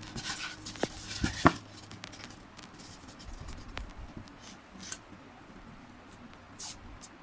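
Hand-work noises while parts are handled: a few sharp clicks and knocks in the first second and a half, then faint scratching and light tapping.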